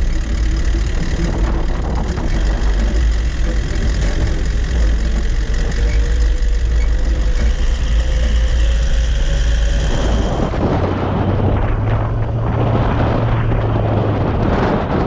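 Four-wheel-drive vehicle driving along, its engine and road noise a steady low rumble; about ten seconds in this gives way to a gustier rush of wind on the microphone.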